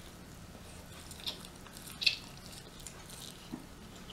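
Eating sounds from rotisserie chicken: a few short, wet clicks and smacks of chewing and pulling at the meat, the sharpest about two seconds in.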